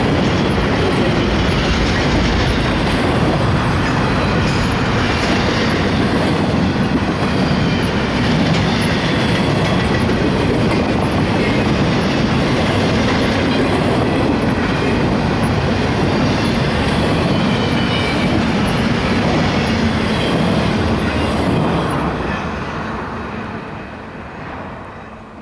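Intermodal freight train cars rolling past, with a steady rumble and clatter of wheels on rail and faint wavering squeal from the wheels. The sound fades away in the last few seconds as the end of the train clears.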